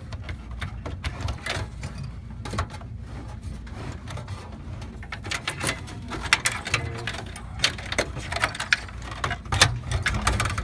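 Irregular clicks, knocks and rattles of sheet metal as a desktop computer's power supply is handled inside its steel case, denser in the second half.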